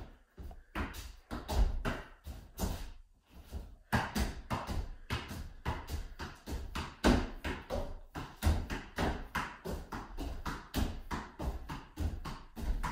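A bare foot kicking a balloon up again and again, alternating right and left: a run of short dull taps, about two or three a second, sparser in the first few seconds and steady after that.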